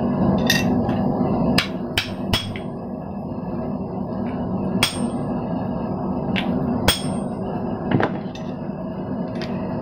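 Hammer blows on a ball-end tool, driving hot thin steel sheet down into a hole in a steel block to dish it into a candle cup. There are about nine sharp metal-on-metal strikes at uneven intervals, three of them close together early on, and several carry a short high ring.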